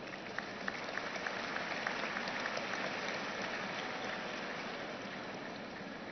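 Audience applauding: many hands clapping in a dense, even patter that swells over the first two seconds and then slowly dies down.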